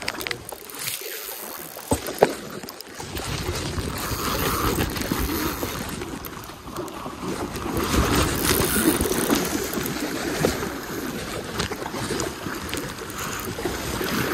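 Shallow river current rushing around a wading angler's legs, with a low rumble of wind on the microphone that grows louder about three seconds in.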